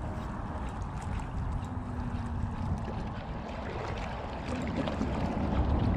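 Steady wind rumble on the microphone over small waves lapping against a rocky shoreline.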